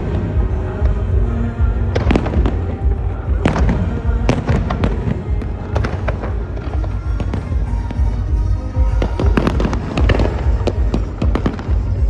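Fireworks bursting and crackling in quick, irregular succession over music.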